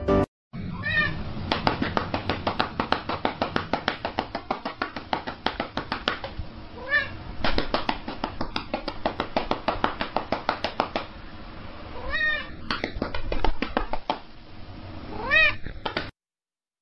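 A domestic cat meowing about four times, each call rising then falling in pitch, over a fast, even ticking of about six ticks a second that fades out about two-thirds of the way through.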